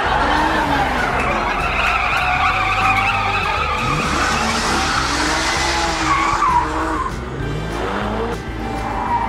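A car engine revving with tyres squealing, over background music.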